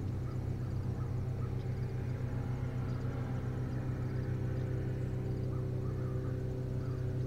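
A steady low mechanical hum made of several pitched tones, unbroken throughout, with faint short high notes now and then.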